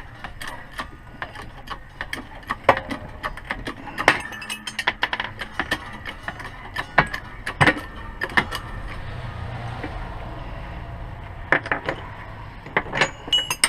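Metal hand tools clinking and clicking against a wheel hub while a worn-out front wheel bearing is being worked out. The clicks and knocks are sharp and irregular, a few of them loud, over a low steady noise.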